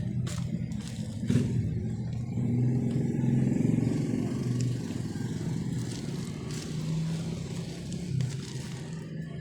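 Yamaha XTZ 125's single-cylinder four-stroke engine running steadily, revving up briefly about two and a half to four seconds in, running on its rebuilt carburetor.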